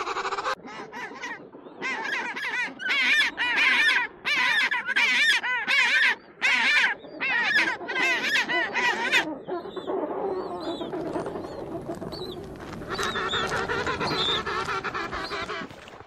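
A colony of king penguins calling: many loud calls with a fast, wavering pitch, overlapping one after another. The calling eases into quieter colony chatter about halfway through, then picks up again near the end.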